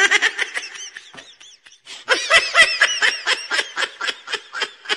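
A person laughing hard in quick, high-pitched bursts, in two runs with a short pause about a second in.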